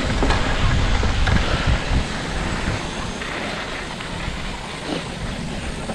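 Wind buffeting the microphone over the rolling noise of a mountain bike on a dirt singletrack, heavier for about the first two seconds, then easing.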